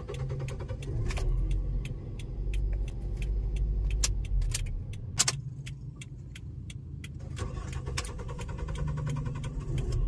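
Toyota Vios being started: the starter cranks the engine for about five seconds before it catches and runs. The long crank is the hard start that persists after new spark plugs, which the mechanic suspects comes from fuel pressure bleeding off.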